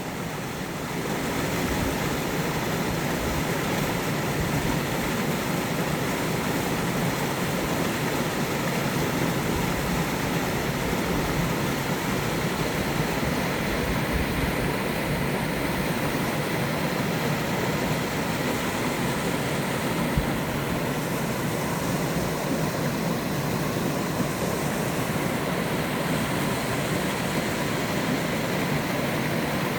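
Waterfall pouring steadily: a continuous rush of falling water that fades in over the first second and then holds even.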